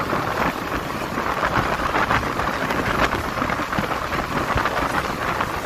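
Steady rushing wind on the microphone, mixed with engine and tyre noise from riding along the road.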